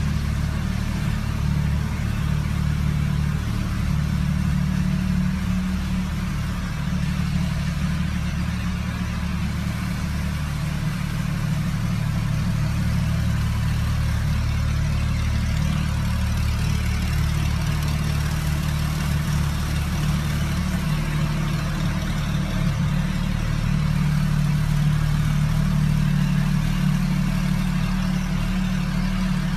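A car engine idling steadily, a low drone with an even hiss above it.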